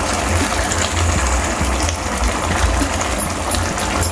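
About a cup of cooking oil poured into a hot wok of cooked beef mince and potatoes: a steady gushing pour over a low, steady rumble.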